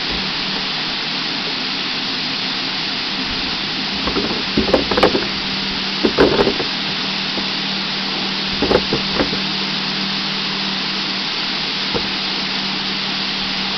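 Carrot wash line running: a steady hiss of water spraying from the nozzle bars over the conveyor, with a steady machine hum underneath. Clusters of knocks and clatter come about four, six and nine seconds in.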